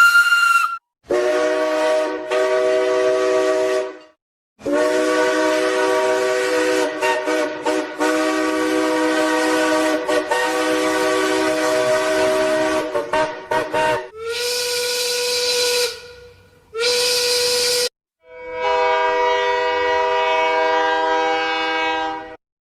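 A series of train whistle and horn blasts: several sounded as chords of multiple notes, one of them long and breaking up into choppy fragments near its end, and two shorter single-note whistles with a hiss of steam.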